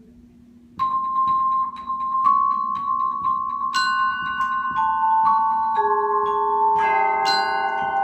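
Keyboard mallet percussion ensemble starting to play about a second in: one high note struck over and over in a steady pulse, then other ringing notes entering one by one and building into a held chord.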